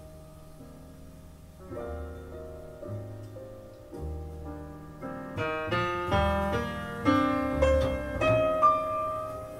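Jazz piano recording played back over floor-standing hi-fi speakers driven by a modified 300B tube amplifier, heard in the listening room. Soft chords build into a louder, busier run of notes in the second half.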